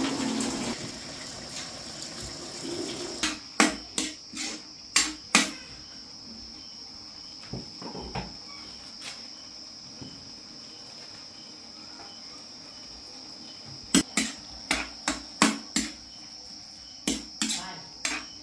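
Kitchenware clattering: sharp knocks of dishes and utensils, a cluster a few seconds in and another near the end, over a steady high insect trill.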